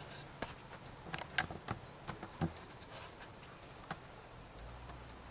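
Faint, scattered small clicks and taps, a few a second and irregular, with a faint low hum coming in near the end.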